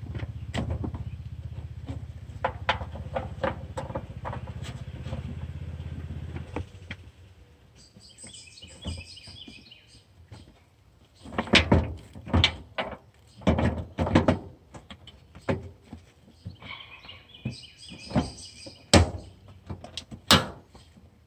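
A low steady rumble with light clicks for the first several seconds. Then a series of loud, sharp knocks and thunks spread over the second half, with two short bursts of bird chirping between them.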